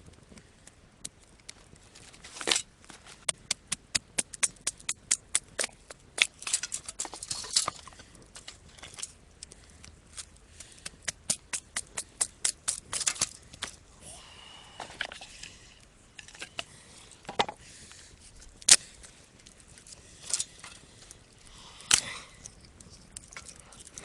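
Dry sticks snapped by hand into thin kindling for a campfire: runs of sharp cracks, a few a second, then a few louder single snaps near the end.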